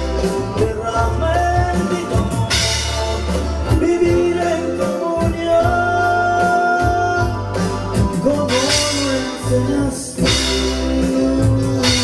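Live gospel band music with a steady bass and drum hits, and a man singing.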